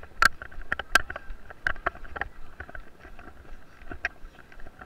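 A runner's footfalls on a dirt track jolting the camera: irregular knocks about twice a second, the loudest two in the first second.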